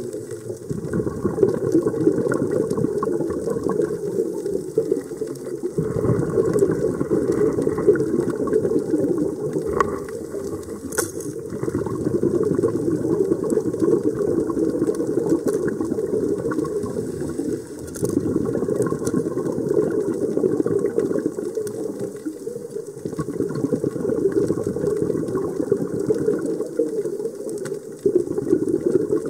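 Scuba diver breathing through a regulator underwater: long gurgling rushes of exhaled bubbles, broken every five or six seconds by a short, quieter inhale. A couple of sharp clicks sound in the middle.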